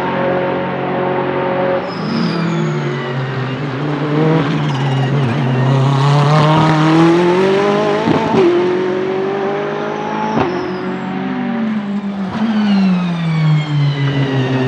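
Ferrari 488 GT3's twin-turbo V8 race engine, holding a steady note at first, then climbing in pitch under acceleration with two sharp gear changes, then dropping in pitch near the end as it slows down.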